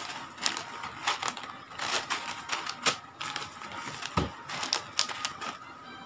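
Clear plastic bags of loose wire ferrules being handled and pulled apart: irregular crinkling and crackling of the plastic, with a soft thump about four seconds in as a bag is set down.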